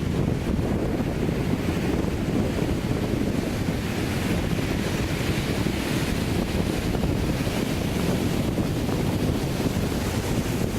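Sea surf breaking and washing up a sandy beach, one wash swelling up in the middle, over a constant low rumble of wind buffeting the microphone.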